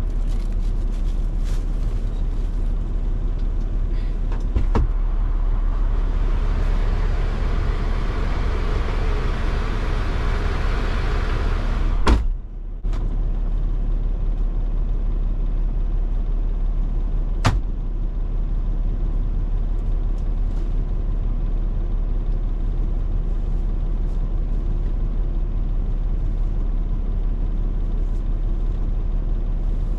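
Steady low rumble of an idling truck engine. In the middle a rushing hiss swells and stops with a sharp click, and a second sharp click comes about five seconds later.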